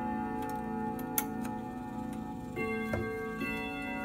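Bulova grandfather clock's chime rods ringing as its minute hand is turned by hand to run through the chimes: overlapping notes hang and fade, with new notes struck about two and a half and three and a half seconds in, and a few sharp clicks.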